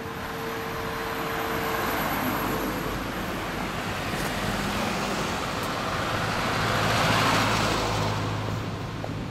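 Road traffic noise: motor vehicles, including small trucks, passing close by, loudest about seven seconds in.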